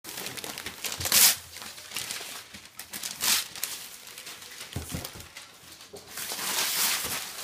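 Christmas wrapping paper being torn and crumpled off a gift box by hand: rustling and ripping in rushes, the loudest a sharp rip about a second in, another about three seconds in, and a longer crinkling stretch near the end.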